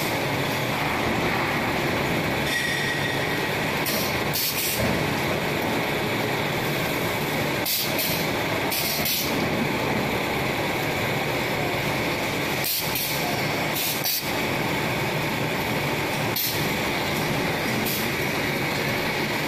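EVA shoe-sole injection moulding machine and its row of hydraulic mould presses running with a steady drone, broken every second or few by short hisses.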